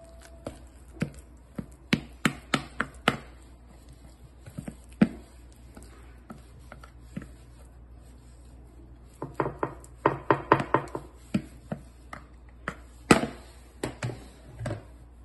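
Wooden spatula scraping and knocking against a mixing bowl and a ceramic loaf dish as thick cake batter is spooned out and smoothed: irregular clusters of short knocks and scrapes, the loudest knock about thirteen seconds in.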